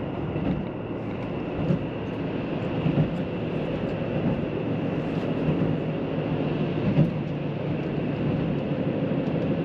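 Steady running noise inside the passenger cabin of a JR Central KiHa 85 series diesel limited express train moving along the line, a dense low rumble with a faint steady high whine over it and a few light ticks.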